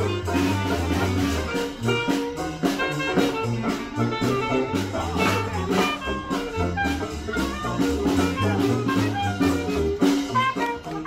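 Live Dixieland jazz band playing an upbeat tune, with trumpet and trombone over a steady bass line.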